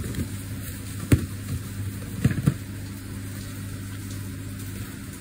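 Three sharp knocks against a plastic bowl as ground spice powder is mixed in it, one about a second in and two close together a little over two seconds in, over a steady low hum.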